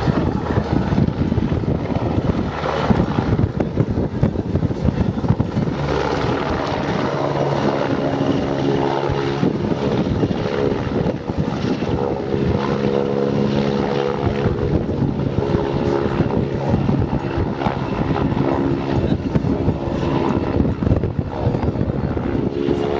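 PZL W-3A Sokol helicopter in display flight: its main rotor beats rapidly and steadily over the running turbine engines. From about six seconds in, a set of steady droning tones joins the sound.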